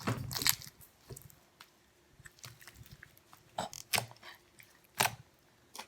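Foam-bead slime being squeezed and worked by hand, giving irregular wet pops and crackles, a few of them sharp.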